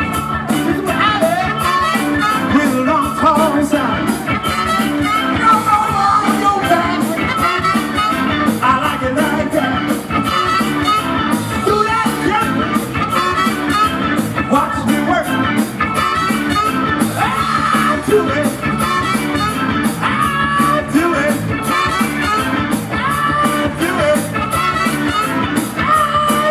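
Live band playing a rock song with singing over a steady drum beat.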